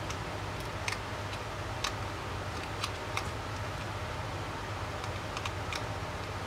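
Light, irregular clicks and taps from handling the small parts of a GPS unit being reassembled, about ten of them, over a steady low hum.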